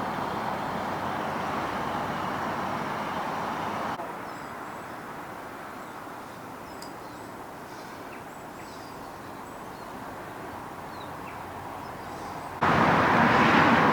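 Outdoor background noise with a steady hum of distant road traffic. About four seconds in it drops quieter and a few faint bird chirps come through; near the end it cuts suddenly to a much louder rush.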